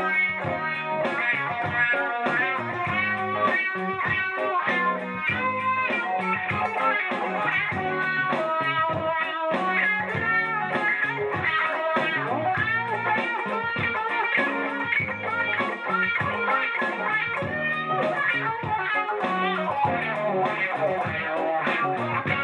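Hamer Echotone semi-hollow electric guitar with Gibson 490R and 498T humbucking pickups, played through a Fender Blues Junior tube amp: a funky, bluesy run of picked single notes over a looped rhythm part from a Boss RC-2 loop station.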